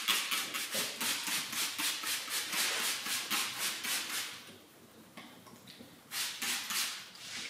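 Hand trigger spray bottle squeezed rapidly, misting liquid onto car paint as a quick run of short hissing sprays, about five a second, that stops about four seconds in. Three more sprays come near the end.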